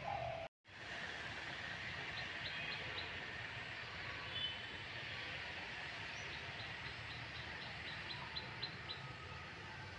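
Outdoor ambience: a steady background of distant traffic-like rumble, with a bird giving rapid series of short high chirps twice. The sound cuts out briefly about half a second in.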